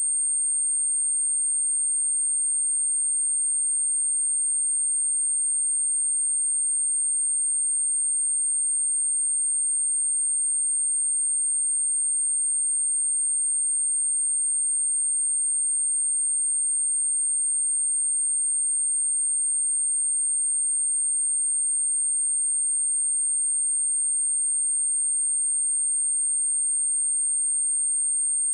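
A pure 8624 Hz sine-wave test tone, a single high-pitched steady whistle held without change.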